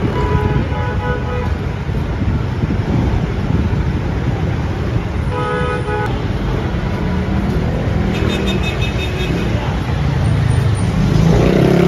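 Road traffic with a steady rumble, and car horns tooting briefly three times: near the start, about five seconds in, and about eight seconds in.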